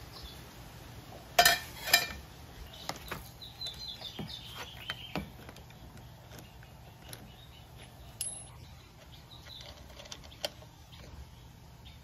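Vespa LX rear axle nut breaking loose under a socket and breaker bar with a pipe extension: two loud sharp metallic cracks about a second and a half in, half a second apart, then scattered lighter clicks of the socket and bar as the nut is worked off.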